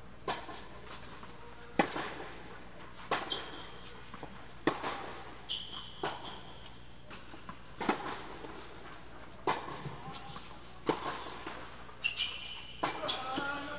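Tennis rally: sharp racquet-on-ball hits and ball bounces about every second and a half, with a few short high squeaks of shoes on the court.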